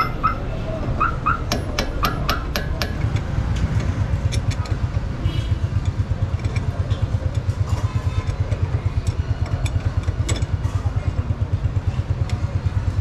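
Steady low throb of an idling engine, pulsing about seven times a second. In the first few seconds it comes with sharp metal clinks of a wrench working on a car's front coilover strut.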